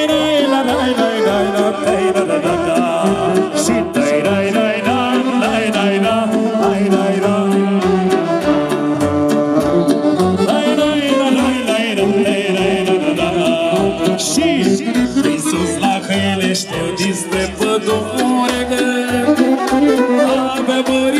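Live band music in a folk style: violin and keyboard over a steady bass beat, with a singer on microphone and guests singing along.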